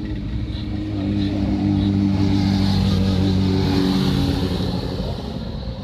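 Audi A3 hatchback driving slowly past with a steady engine note, growing louder about a second in as it draws close and fading as it moves on.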